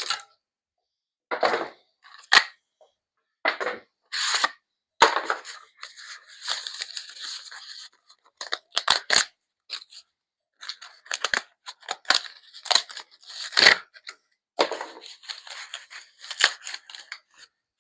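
Packing paper and tape being ripped off a bike frame by hand: a string of short tearing rips with brief pauses between them, and two longer stretches of tearing and rustling, one in the middle and one near the end.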